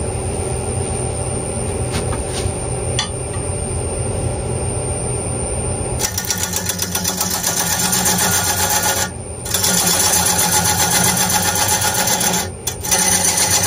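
Wood lathe running with an oak crotch blank spinning, a steady hum with a thin high whine. About six seconds in a gouge starts cutting into the uneven wood, a loud, fast rhythmic chatter of the tool biting with each turn, broken by two brief pauses.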